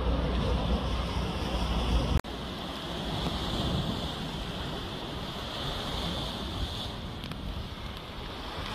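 Sea waves washing against a rocky shore, with wind buffeting the microphone as a low rumble. The rumble cuts off suddenly about two seconds in, leaving a steady wash of surf.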